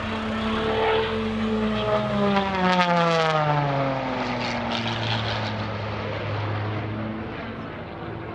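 MXS aerobatic plane's piston engine and propeller making a low, fast pass: the pitch drops steeply as it goes by, two to four seconds in. A steady, lower drone follows as it pulls up into a climb.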